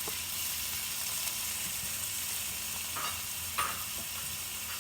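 Chopped onions sizzling in hot oil in a pan: a steady frying hiss, with two brief clinks or scrapes of a utensil about three seconds in.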